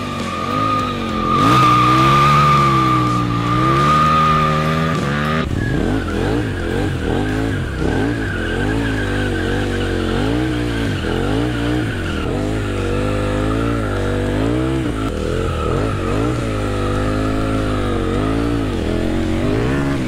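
KTM 790 Duke's twin-cylinder engine revving up and down over and over, pitch rising and falling, with tyres squealing as the motorcycle is spun and drifted on tarmac.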